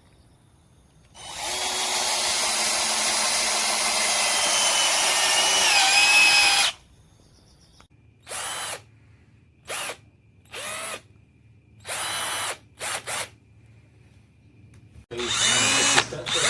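KIMO 20V cordless drill driver's motor running: one long run of about five seconds, its whine rising in pitch toward the end, then a string of short trigger bursts, and another run starting near the end.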